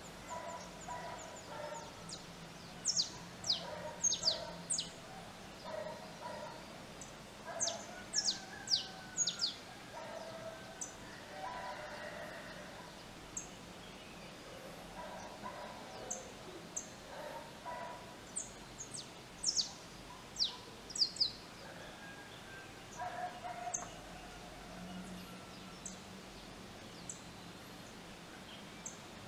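Dawn bird chorus: bursts of sharp, high whistles that sweep downward, coming in clusters several times, over softer, lower bird calls.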